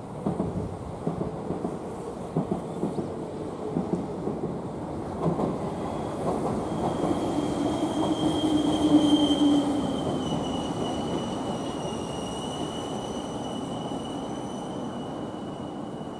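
Meitetsu electric train running past: wheels clacking over rail joints through the first few seconds, then a swelling rumble with a thin high squeal that is loudest about nine seconds in and slowly fades.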